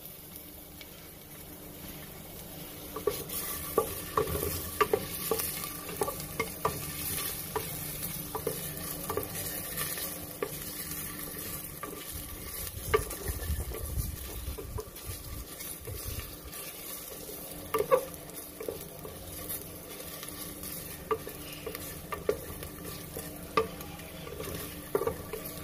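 Sliced ginger sautéing in hot cooking oil in a pan: a steady sizzle, with a spatula stirring it and knocking against the pan now and then.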